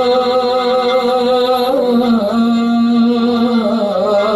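A man singing a Yemeni song into a microphone with musical accompaniment. He holds one long note for about the first two seconds, then moves into a wavering, ornamented melodic line.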